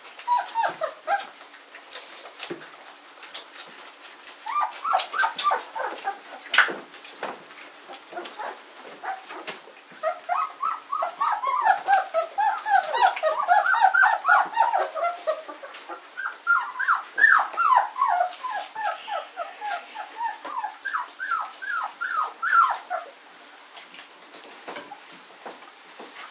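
Young German shorthaired pointer puppies whimpering and squealing in quick runs of short, high calls, a brief bout at first and a long run through the middle, over scattered small clicks, as the litter jostles to nurse.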